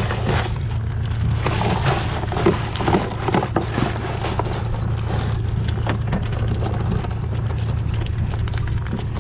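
Catch from a shrimp trawl bag spilling into a tub: wet shrimp, small fish and a horseshoe crab landing with a patter of clicks and clatters, thickest in the first four seconds. Underneath is the steady low drone of the boat's 90 hp four-stroke Yamaha outboard.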